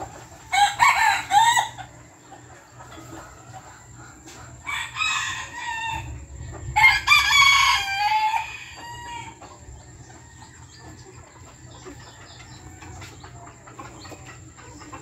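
Bantam roosters crowing, three short crows: about a second in, around five seconds in, and a longer one near seven seconds, with quieter clucking in between.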